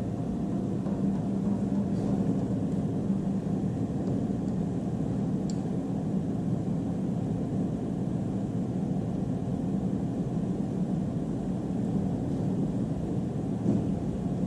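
Steady low rumbling noise with no clear rhythm or pitch, and a faint tick or two.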